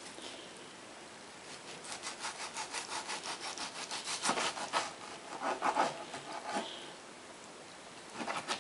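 Kitchen knife sawing back and forth through raw chicken breast on a cutting board, making a quick run of rasping strokes at about five or six a second from about a second and a half in. A few slower, louder strokes follow, then a short pause, and more strokes near the end.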